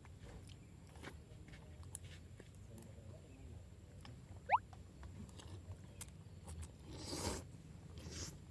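Faint eating sounds: crunching and chewing of fried snacks, with small clicks and a rustle about seven seconds in. A short, sharp rising squeak about halfway through is the loudest sound.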